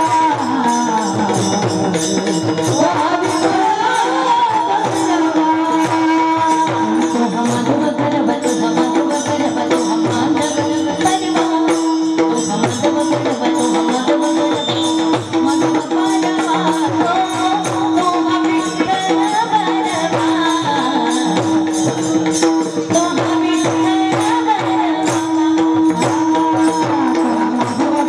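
Music: a steady held drone under a melody that slides up and down, with continuous jingling percussion.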